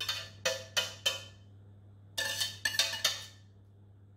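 Wire whisk knocking and scraping inside a stainless steel saucepan as the last of the white sauce is scraped out, each strike ringing briefly. Four quick knocks come in the first second, then another cluster of three or four about two to three seconds in.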